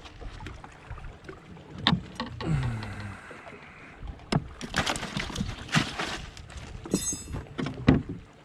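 Scattered knocks, clicks and clatter of fishing tackle being handled in a small fishing boat, with a quick rattle of clicks about seven seconds in.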